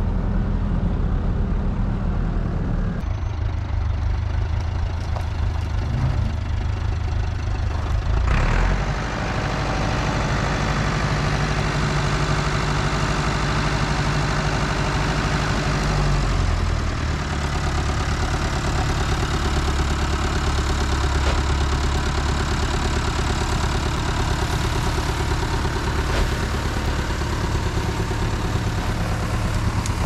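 Diesel engine of heavy farm machinery running steadily, its note shifting to a different speed a few times.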